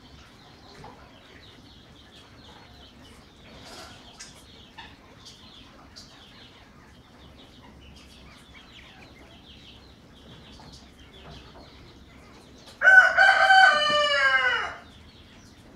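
A rooster crows once, a single loud call of about two seconds near the end that holds its pitch and then falls away, over faint high chirping throughout.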